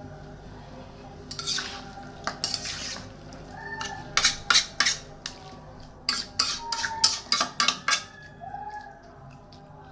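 A metal utensil scraping and stirring in a cooking pot, then knocking against it in quick runs of sharp clinks, about three and then about six.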